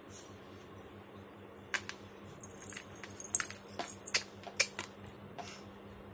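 Small metal anklets and bangles jingling and clinking as a baby shifts about, a run of quick sharp clinks from about a second and a half in until nearly five seconds.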